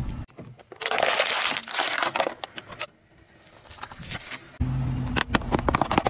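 Car tyre slowly rolling over and crushing objects on asphalt: a loud burst of crunching about a second in, a quieter stretch, then the car's low running hum with sharp cracks and snaps as the tyre presses down on small items near the end.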